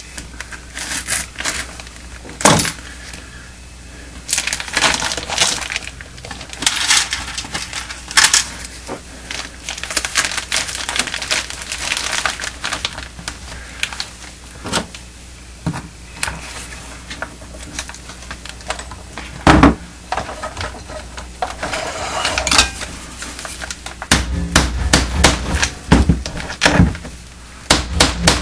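Crinkling and crackling of a plastic tarp being handled and pierced to fit metal grommets, with scattered clicks. A few heavier knocks on the wooden bench come about two thirds through and near the end.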